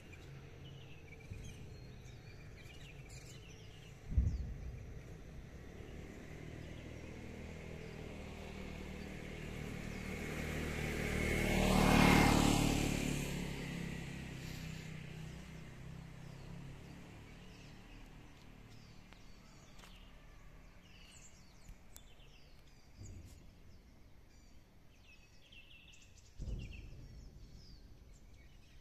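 A road vehicle passes by, growing louder over several seconds to its peak about twelve seconds in, then fading away. Small birds chirp faintly around it, more often near the end, and two brief low thumps come about four seconds in and near the end.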